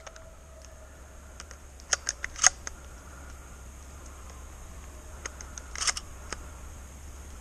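Handling noise from a shotgun being moved: a few sharp clicks and knocks in two clusters, about two and six seconds in, over a steady low rumble.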